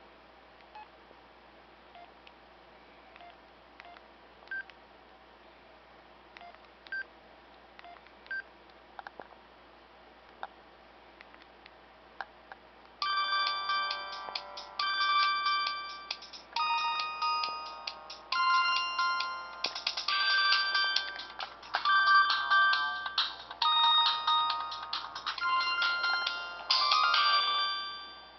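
Kyocera MTV-edition slider cell phone: a dozen or so faint keypad clicks and short beeps, then about halfway through a synthesized ringtone starts, a melody with chords played through the phone's small speaker in repeating phrases, stopping just before the end.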